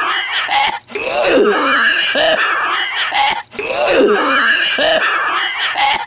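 A man's exaggerated, put-on smoker's cough: strained hacking and gagging with the voice in it. The same stretch of coughing repeats in an identical loop about every two and a half seconds, each time after a brief break.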